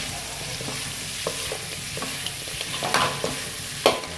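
Quail pieces sizzling in a metal wok as a metal spatula and spoon stir and scrape them, with a few sharp clicks of metal on the pan.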